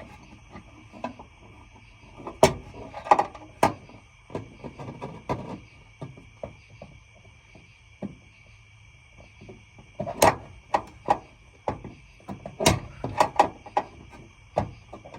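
Irregular clicks and knocks of bolts and strap anchor hardware being handled and worked into place during a test fit, in two busy clusters with scattered single taps between.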